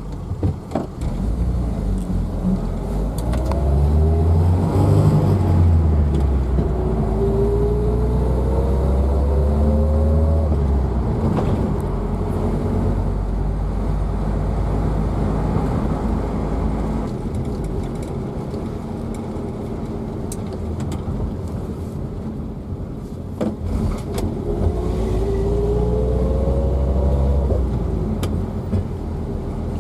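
Small vintage car driving along with its four-cylinder engine running under load. Twice a whine rises in pitch as it speeds up, a few seconds in and again near the end.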